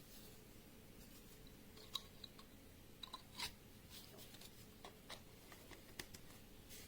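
Near silence: faint room tone with a scattering of small, faint clicks and taps, the clearest about two and three and a half seconds in.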